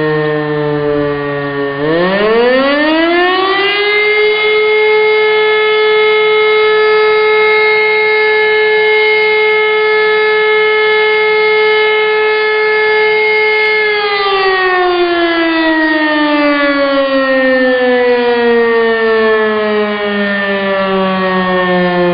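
E57 electric motor siren sounding a test alarm. It is still winding down at first, is powered up about two seconds in and spins up to a steady high wail within about two seconds, holds it for about ten seconds, then is switched off and slowly winds down in pitch over the last eight seconds.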